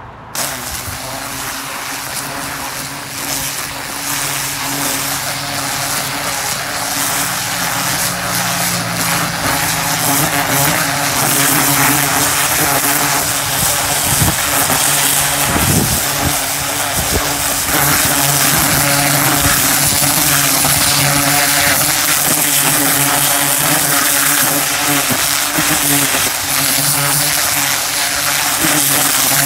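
Pressure washer running steadily: a motor hum under the loud hiss of the high-pressure water jet blasting into bare soil, tearing out weeds by the roots. It grows louder over the first ten seconds or so, then holds steady.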